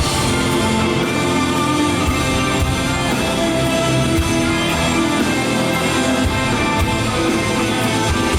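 Live rock band playing an instrumental passage: guitars and bass holding sustained chords over drums, with cymbal strokes about twice a second.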